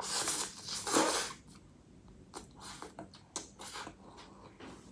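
Spicy noodles slurped in two noisy draws over the first second and a half, then quieter chewing with small clicks.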